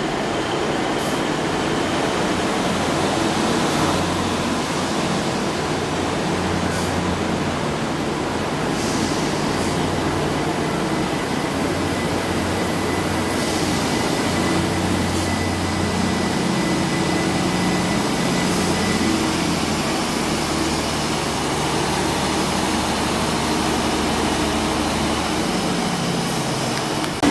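Class 769 bi-mode multiple unit drawing slowly past along the platform: a steady low engine hum that steps up and down in pitch, with a faint high whine through the middle.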